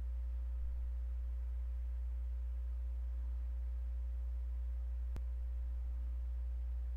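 Steady low electrical hum with thin overtones, typical of mains hum picked up in a recording setup. A single faint click about five seconds in.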